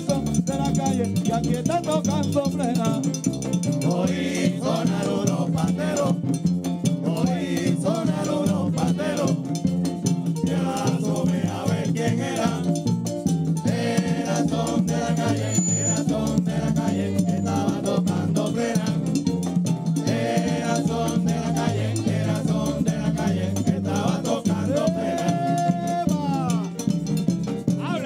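Live Latin band music: men singing lead and chorus over hand-held frame drums (panderos), a güiro scraper and upright bass keeping a steady beat.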